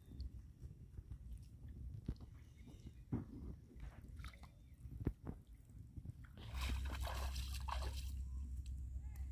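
Small splashes and drips of pond water as wet hands work around a bamboo tube set in the water, with a few sharp knocks. About six and a half seconds in, a louder steady rushing noise with a low rumble takes over.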